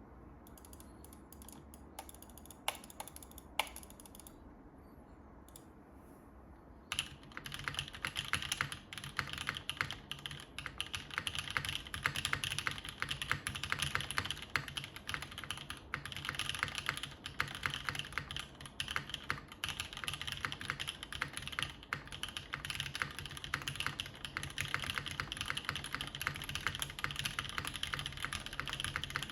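Typing on a JTD Ovinnik TKL mechanical keyboard with broken-in NovelKeys Cream linear switches, a top-mounted 5052 aluminium plate and GMK keycaps. It opens with a few separate key presses, then fast continuous typing starts about seven seconds in.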